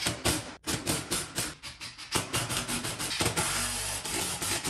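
Cordless power driver running in bursts, driving bolts up through a wooden camera box into the ceiling, with a rapid run of sharp clicks and strikes.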